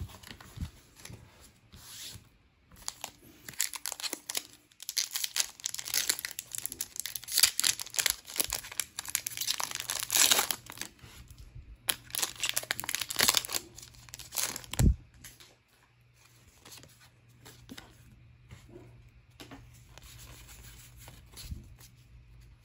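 Foil wrapper of a Pokémon GO trading-card booster pack being torn open by hand, crinkling and crackling for about ten seconds, with one sharp thump after the tearing. After that comes faint handling of the cards.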